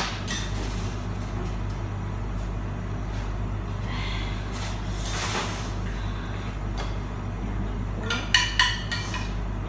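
Steady low hum of a running kitchen appliance, with a short rustle about five seconds in and a few sharp clatters of dishes being set down on the table near the end.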